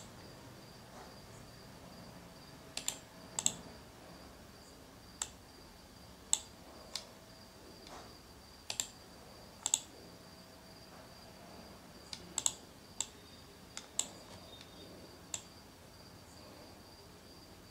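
Computer mouse clicking: scattered sharp clicks, several in quick pairs, about fifteen in all, over a faint steady high-pitched whine.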